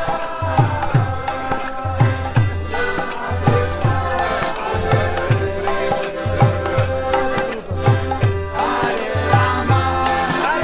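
Group chanting a repetitive devotional mantra over a steady hand-drum beat of about two strokes a second, with small hand cymbals clicking in time.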